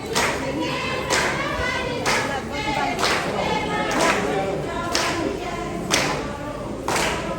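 A group singing Tharu folk song for a cultural dance, with a sharp percussive strike about once a second keeping the beat.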